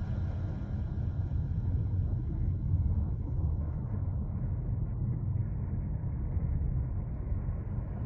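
Car driving along, a steady low rumble of road and engine noise.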